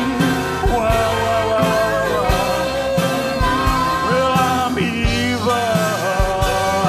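Live rock-and-roll band playing, with drums, bass, electric guitar and keyboards hitting a driving beat, while voices hold long, wavering sung notes over it.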